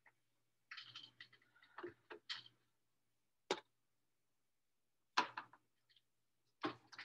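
Scattered small clicks and knocks, with a run of short rustling handling noises in the first few seconds. Three sharp knocks follow, the loudest about five seconds in.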